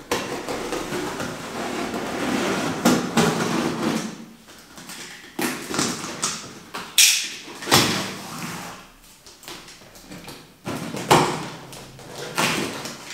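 Packing tape on a cardboard box being slit with a box cutter and ripped, and the cardboard flaps pulled open: a long scraping cut for the first few seconds, then a series of short, sharp rips and scrapes.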